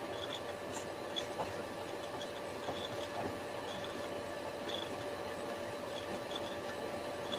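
Steady background hum and hiss from an open microphone, with a faint steady tone and a few faint scattered ticks.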